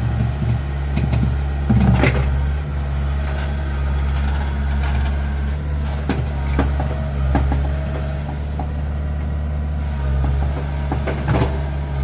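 Small crawler excavator's diesel engine running steadily under hydraulic load as the boom and bucket push into the mud, with a few short clanks. One of its tracks has come off.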